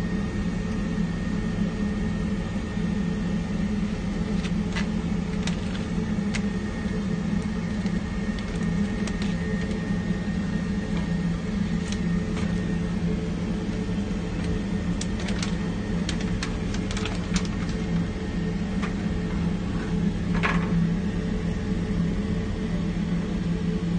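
A steady low mechanical hum, with scattered light clicks and ticks and one short higher-pitched sound about twenty seconds in.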